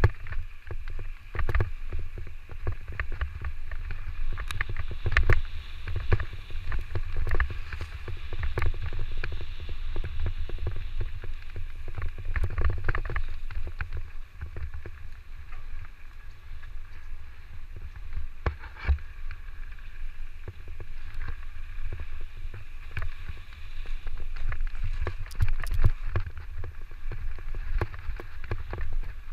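Electric mountain bike riding a rough dirt trail: wind rumbling on the microphone, with frequent knocks and rattles from the bike jolting over bumps and roots.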